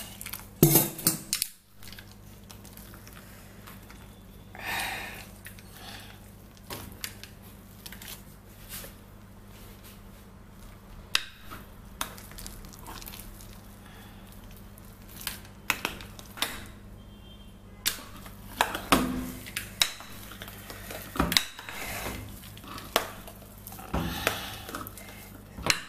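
Metal spoon mixing powdered cassava and water into stiff eba dough in a plastic bowl: irregular scrapes and taps of the spoon against the bowl as the dough is mashed and worked.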